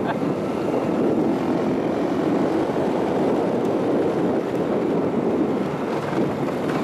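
Steady engine and road noise from a vehicle driving on a bumpy dirt road.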